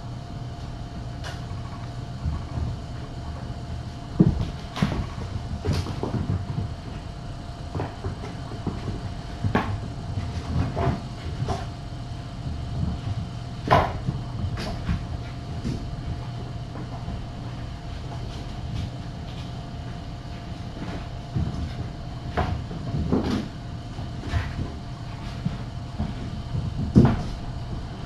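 Kittens making irregular soft thumps and knocks as they jump on and off a cat tree and scamper across the floor, over a steady low hum.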